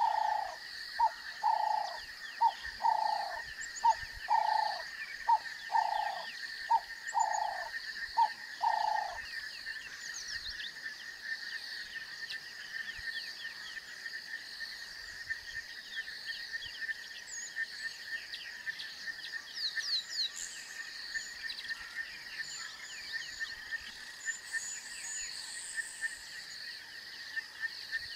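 Bushveld wildlife sounds: an unseen animal gives a series of about a dozen short, mid-pitched calls, alternating long and short notes, which stop about nine seconds in. Steady high insect drone and scattered bird chirps run underneath.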